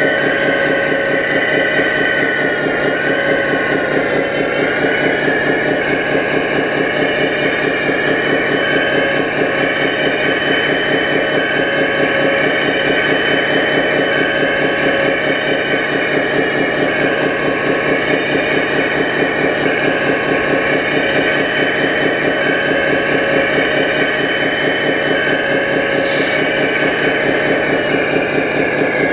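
RC Hitachi Zaxis 330 hydraulic excavator working: a steady whine from its hydraulic pump over a rapid, even, engine-like pulsing. The whine's pitch dips and shifts slightly now and then as the arm and bucket move under load.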